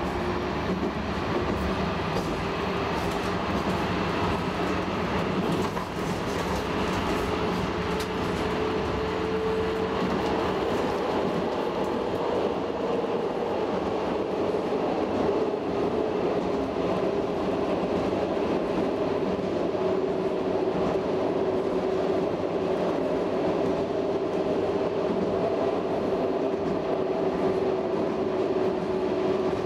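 Electric passenger train running at speed, heard from inside the carriage: a continuous rumble of wheels on rail with a motor whine that rises gently in pitch and then holds steady.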